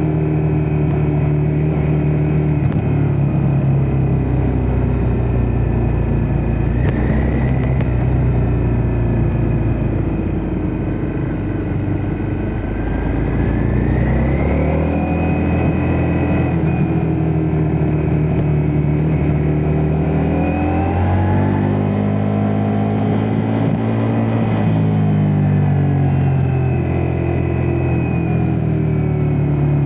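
Ducati Multistrada V4 S's V4 engine running under way, its note rising and falling repeatedly as the revs climb and drop. A higher whine rises and falls along with the engine.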